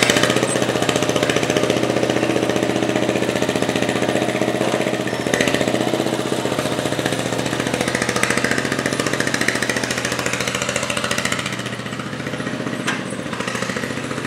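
Sears Suburban garden tractor engine running as the tractor pushes dirt with its front blade, a steady, rapidly pulsing engine note.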